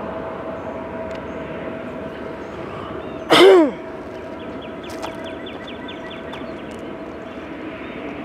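Freight train rolling away on the track, a steady rumble of wheels on rail with a faint constant tone over it. About three seconds in, a loud, short cry falls sharply in pitch and is gone within half a second.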